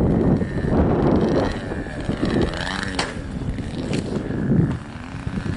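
Wind buffeting the microphone, strongest for the first four and a half seconds, over the distant drone of a radio-controlled model aeroplane's motor in flight.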